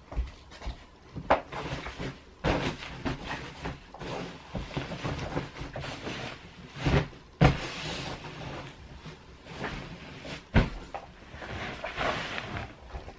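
Bedding being handled: a duvet and pillows rustling as they are shaken out and laid down, with several thumps as pillows are set or patted into place.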